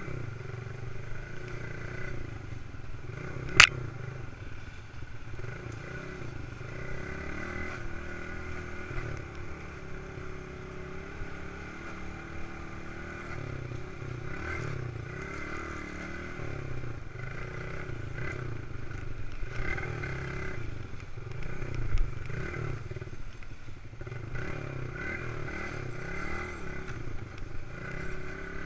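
Old Suzuki dirt bike's engine running as it is ridden over rough ground, its pitch rising and falling with the throttle. A single sharp knock about three and a half seconds in and a dull thud around twenty-two seconds stand out.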